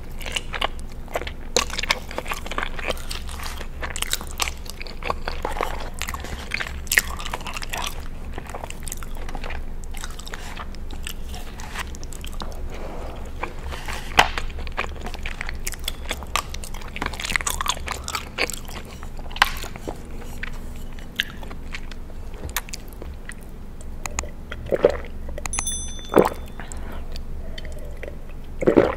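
Close-miked chewing and wet mouth sounds of eating creamy alfredo macaroni, with many small clicks and smacks. A plastic spoon scrapes the foil tray, and near the end come a few gulps of a drink.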